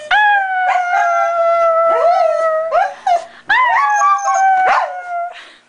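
Shetland sheepdog howling on cue: two long drawn-out howls that slide slightly down in pitch, with a few short yips between them about three seconds in.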